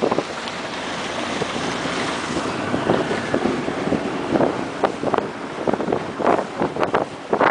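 Wind buffeting the microphone in irregular gusts, over the wash of choppy water around a small open boat.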